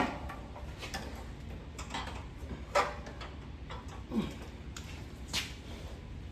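A few separate metallic clicks and knocks from a hand wrench working a mower blade nut tight, with a low steady hum underneath.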